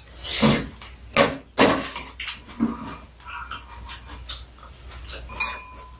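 Close-up eating noises: loud slurps from a spoon of soup and wet chewing, three strong slurps in the first two seconds, then softer smacking and small clicks.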